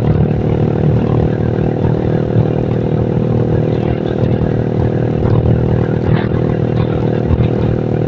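Motorcycle engine running at a steady speed while riding, an even drone with no revving changes.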